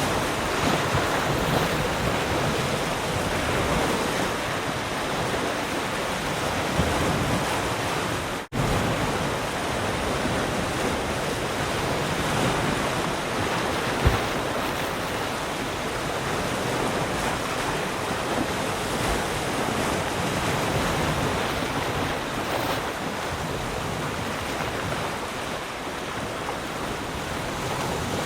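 Sea surf: waves breaking and washing ashore in a continuous rush, with wind on the microphone. The sound cuts out for a split second about eight seconds in, as at an edit splice.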